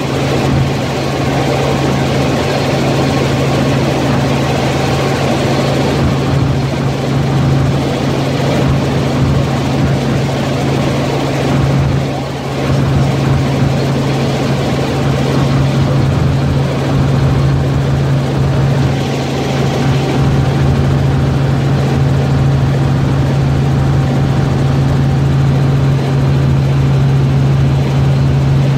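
Light helicopter in cruise flight heard from inside its cabin: a steady drone of engine and rotor over a strong low hum, even throughout with a brief dip about twelve seconds in.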